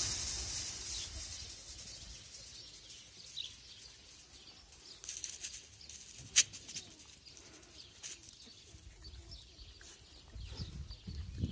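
Quiet outdoor ambience with a few faint, short chirps and scattered small clicks. One sharp click about six seconds in.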